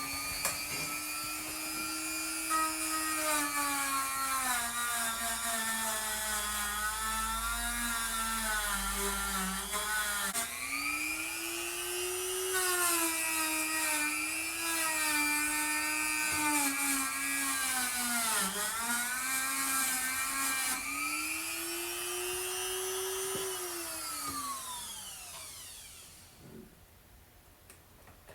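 Dremel rotary tool with a small wire wheel running at high speed, scrubbing paint off bolts so they can be oiled and removed. Its whine sags in pitch under load and recovers, spins up at the start and winds down near the end.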